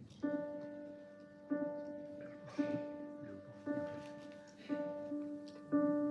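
Music begins with a single pitched instrument note struck again about once a second, each strike ringing on and fading before the next.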